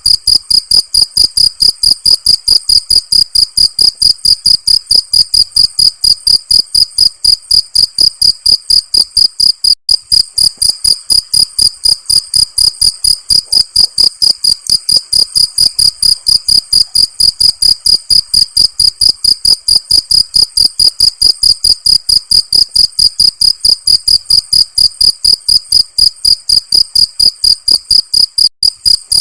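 Crickets chirping: a steady, even run of short high-pitched chirps, several a second, without a break.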